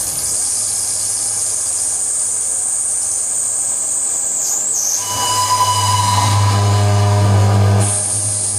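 Electronic noise music from effects pedals and a mixer: a high hiss that slowly falls in pitch. About five seconds in, a loud low drone enters together with a steady whistling tone.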